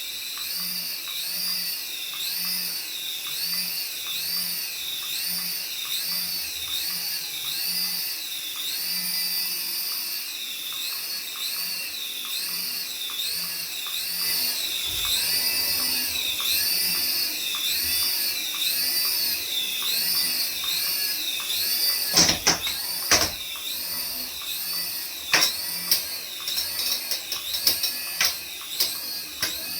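A battery toy's electronic sound effect: a high-pitched whine that warbles up and down about twice a second, steady and repeating. Sharp clicks and knocks come in over it near the end.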